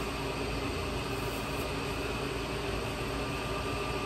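Steady room background noise: a low hum with faint steady tones and hiss, unchanging throughout.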